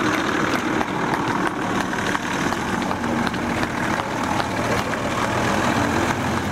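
Coach bus engine running as the bus pulls away and drives off, steady throughout.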